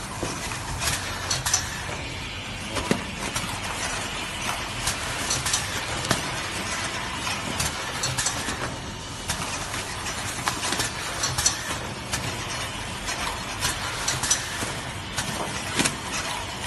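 Kitchen-towel film-packaging machine running: a steady mechanical clatter with frequent sharp clicks and knocks from its moving parts.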